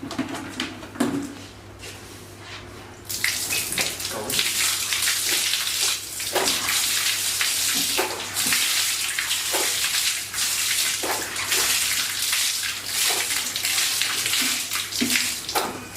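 Water running and splashing steadily over a motorcycle turn signal light to test that it is waterproof. It starts about three seconds in after a few light knocks and stops just before the end.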